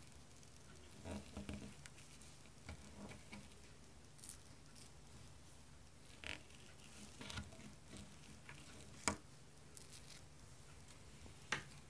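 Faint handling sounds of a small plastic toy rolling pin being rolled and pressed over Play-Doh on a plastic toy tray: soft scattered taps and rubbing, with a sharper click about nine seconds in and another near the end.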